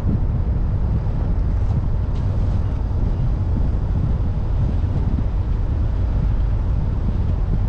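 Steady low rumble of wind buffeting the microphone, mixed with road noise from a moving car.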